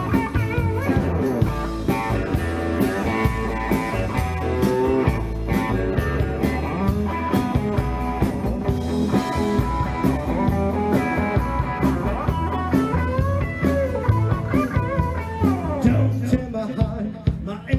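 Live blues-rock band playing an instrumental passage with no singing: a lead guitar line over bass and drums.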